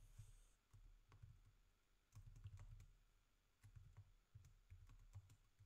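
Faint typing on a computer keyboard: scattered single keystrokes at an uneven pace, with short pauses between them.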